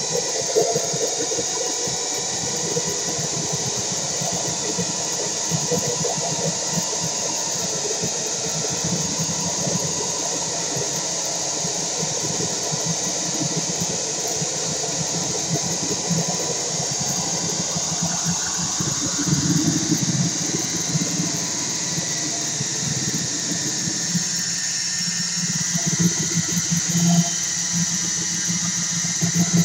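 Homemade four-oscillator noise drone synth built on a 40106 Schmitt-trigger chip, giving a steady, dense, harsh drone with a high squeal over it. About two-thirds of the way through, its lower tones shift.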